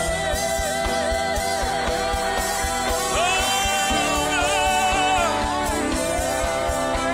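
Live gospel worship music: a male lead singer holds long sung notes that slide between pitches, with a backing singer and a band keeping a steady beat underneath.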